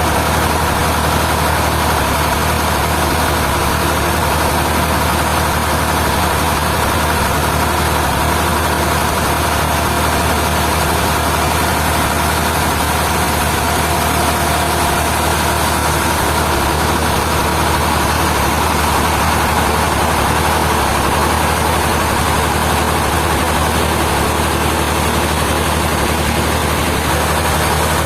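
Heavy sawmill machinery running steadily, with a low engine hum and a constant whine.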